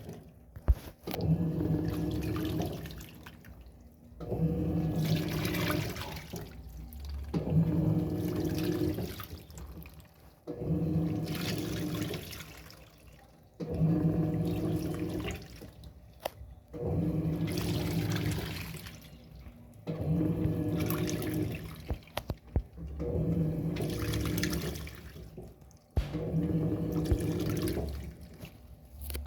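Electrolux Turbo Economia top-loading washing machine agitating: the motor hums and water and clothes slosh in strokes of about two and a half seconds, with a short pause about every three seconds.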